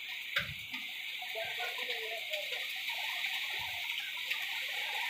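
Heavy rain pouring down on grass and a road, a steady hiss with scattered sharp ticks of drops, and a couple of short low thumps.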